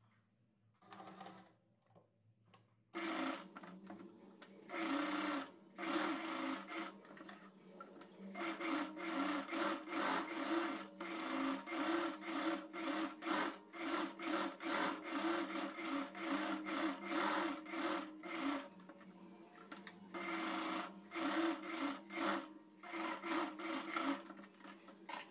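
Sewing machine stitching a blouse sleeve and its lining together along the seam. It starts about three seconds in and runs in stretches, stopping briefly several times, with a longer pause of about two seconds in the second half.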